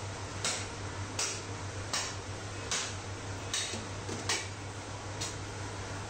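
Butcher's knife being stroked on a sharpening steel: short metallic scrapes repeating about once every three-quarters of a second, over a steady low hum.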